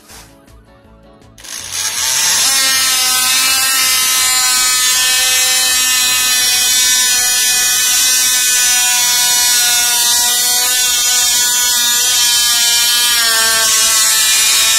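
Oscillating multi-tool plunge-cutting through a hardwood floor board: a steady high buzz with a slightly wavering pitch as the blade loads. It starts about a second and a half in and cuts off abruptly at the end.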